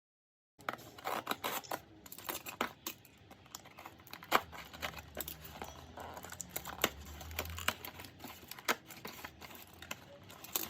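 Packaging being handled and opened by hand: rustling, crinkling and tearing, with many irregular sharp clicks and taps. It starts after about half a second of dead silence.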